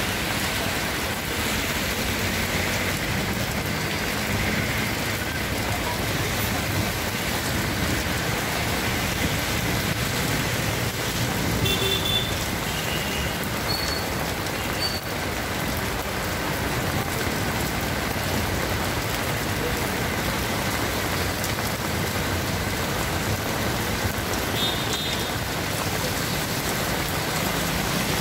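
Heavy rain pouring steadily onto a flooded street, a constant dense hiss, with road traffic passing through the water.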